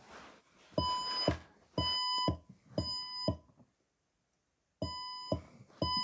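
Fire alarm evacuation tone in the temporal-three pattern: three short, steady electronic beeps, a pause of about a second and a half, then the next set of three begins. The pattern is the standard signal to evacuate the building, sounding between voice-evacuation messages.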